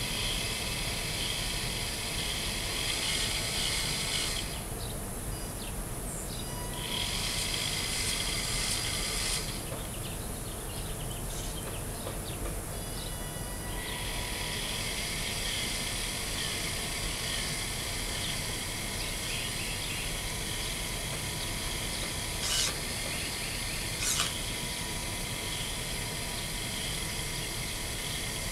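Homemade RC car's steering servos and drive electronics giving a faint, steady high-pitched whine that cuts out and back in a few times over steady outdoor background noise, with two short sharp clicks near the end.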